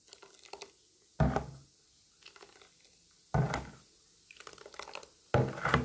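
A ladle stirring a thin yogurt-and-herb drink in a stainless steel bowl, lifting the liquid and letting it fall back: three sudden plops about two seconds apart.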